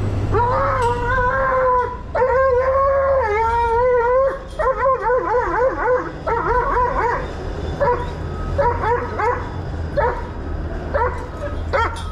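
A dog howling: two long held howls in the first few seconds, the second wavering, then a run of short yelping whines and yips.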